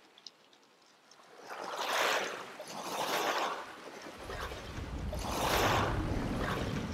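Sea waves washing up a shingle beach, the hiss swelling and fading in three surges. From about four seconds in, a steady low rumble joins underneath.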